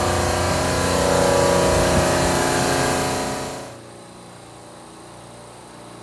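Steady, loud drone of refrigeration machinery in a compressor rack room: several steady hum tones over a hiss. About three and a half seconds in it cuts off sharply, leaving a much quieter low hum.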